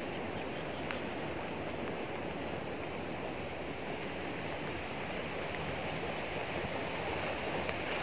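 Steady rushing of running water, with a faint click about a second in.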